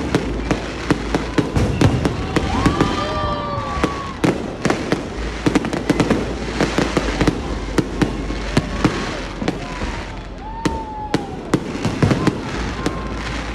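Aerial fireworks display going off continuously: many sharp bangs and crackling bursts in rapid succession, with a few short whistling tones among them.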